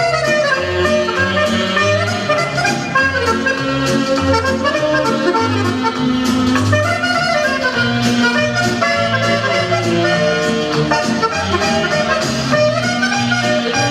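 Music for a dance number: a melody over a bass that pulses steadily.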